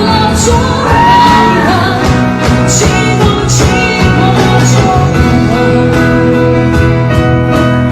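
Loud pop song with a steady beat and a singing voice, cut in abruptly and cut off abruptly.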